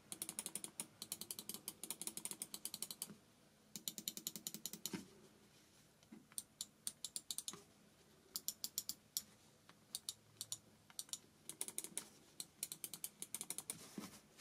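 Keychron M1 wireless mouse buttons being clicked in quick runs of several clicks a second, with short pauses between runs as each button is tested in turn.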